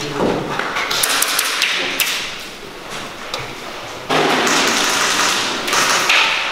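Airsoft players moving through a building: taps, thumps and the rustle of gear and footsteps, with a cluster of sharp clicks about a second in and louder rustling for a couple of seconds near the end.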